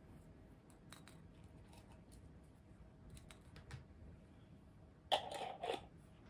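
Faint clicks and taps of small ceramic ramekins and spice jars being handled on a tabletop, with one short, louder scraping clatter about five seconds in.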